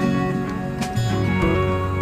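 Background music led by plucked acoustic guitar, with regular plucked notes over held tones.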